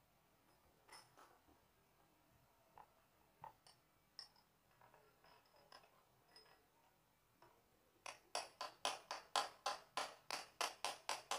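Scattered light metal clinks of hand tools, then from about eight seconds in a hammer rapidly striking a metal tool held against a scooter engine's cylinder head, about five blows a second.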